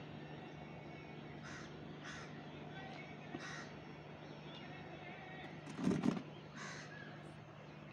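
Crow cawing repeatedly, about four short calls a second or more apart, with a brief louder low sound about six seconds in.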